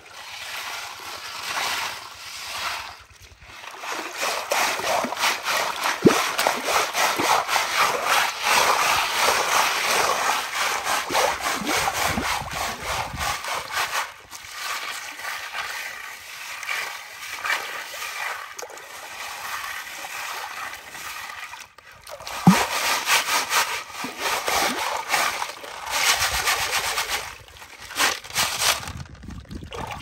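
Muddy water sloshing and splashing as a round sieve is swirled and shaken in shallow water to wash gravel, with stones rattling on the sieve's perforated metal bottom. The sound comes in swelling waves with a couple of sharper knocks.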